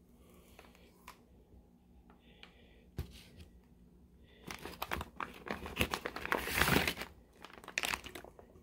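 Plastic bags and packing in a shipping box being handled and crinkled, with a sharp knock about three seconds in, then a long stretch of dense crinkling and rustling that is loudest just before the end.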